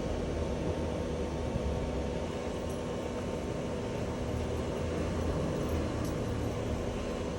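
Steady low rumble and running noise of a moving vehicle.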